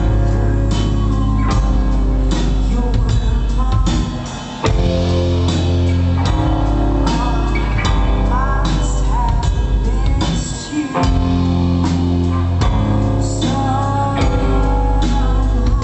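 Rock band playing live: steady drum kit hits over sustained low bass notes and guitar, with a singing voice on top. The music dips briefly twice, about four seconds in and again near eleven seconds.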